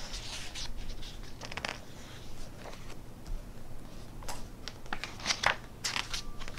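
Pages of a hardback book being turned and smoothed by hand: several short papery rustles and slides.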